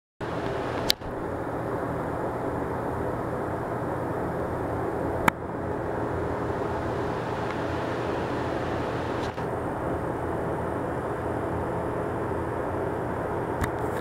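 Ceiling-mounted electric unit heater running, its three-blade fan giving a steady rush of air with a motor hum underneath. Two sharp clicks stand out, about a second in and about five seconds in.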